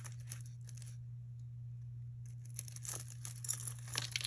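Beaded jewelry and metal chains clicking and rustling as pieces are handled, with the clicks growing busier about halfway through, over a steady low hum.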